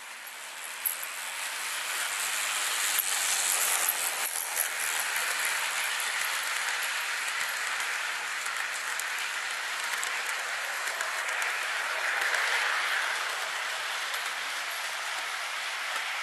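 An HO-scale model passenger train running past on the layout track, its wheels rattling along the rails. The rattle builds over the first few seconds as the train nears, then holds steady, with a sharp click about a second in.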